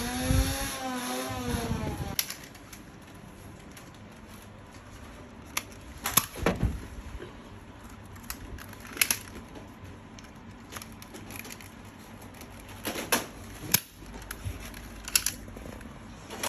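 Nerf Infinus blaster's electric flywheel motor whirring for about two seconds, its pitch wavering and then winding down. It is followed by scattered sharp clicks and knocks.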